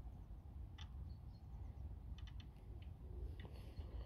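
A few faint, sharp clicks from a fishing rod and reel being handled, three of them in quick succession a little after two seconds in, over a steady low rumble.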